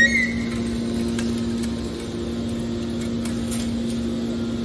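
Hydraulic scrap metal baler running with a steady machine hum, with a brief high squeal at the very start.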